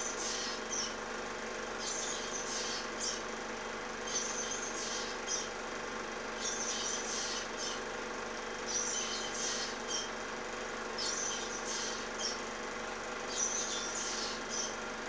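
Osprey calling: short series of high-pitched chirps that repeat about every two seconds, over a steady low hum.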